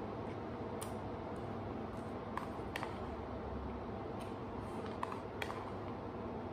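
Wooden chopsticks clicking lightly against a plastic food container a few times as loose rice is scooped from it into the mouth, over steady low room noise.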